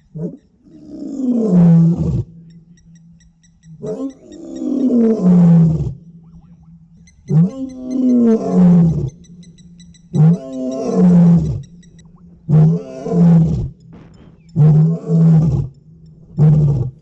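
African lion roaring: four long, moaning roars, each falling in pitch, then a run of about five shorter grunts coming closer together, the usual shape of a lion's roaring bout.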